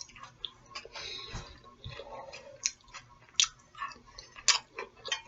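Close-miked chewing of food, with irregular wet mouth sounds and a few sharp clicks.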